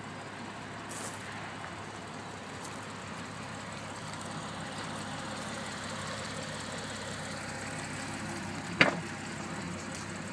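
Steady low hum of an idling car engine, with a single sharp clunk about nine seconds in as the car door is opened.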